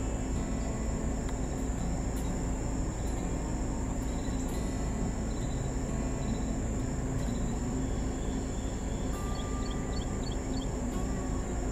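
Steady high-pitched insect chorus over the low rumble of an idling car engine. A quick run of short high chirps comes near the end.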